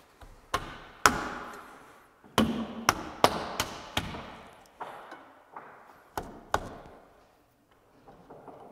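A hand knocking the wooden 4x4 top rail down onto black aluminum balusters: about ten sharp knocks at uneven spacing, each with a short ringing tail, the loudest in the first four seconds.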